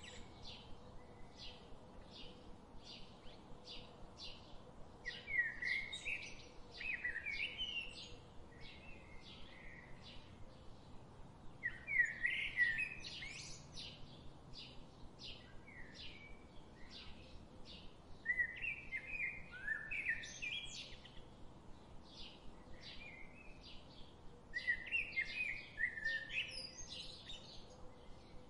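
Wild birds singing: short bursts of warbling song come about every six seconds, over a steady run of short high notes at about two a second.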